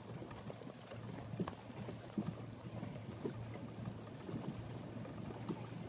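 Water slapping and knocking irregularly against the hull of a Hobie Adventure Island kayak trimaran under sail, over a low steady hum and a little wind on the microphone.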